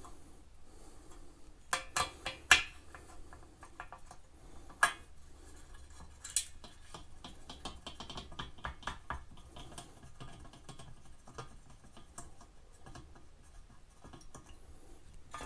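Small metal nuts and a socket clicking and clinking against a bathroom fan motor's sheet-metal mounting bracket as the nuts are spun off by hand. There are three sharp clicks about two seconds in, a single louder one near five seconds, and a run of light ticks around eight to nine seconds.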